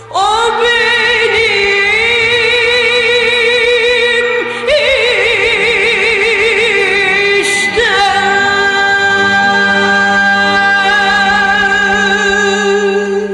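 The closing bars of a Turkish classical (Türk sanat müziği) song: a woman's voice holds long notes with wide vibrato over instrumental accompaniment, in three phrases, the last note held to the end.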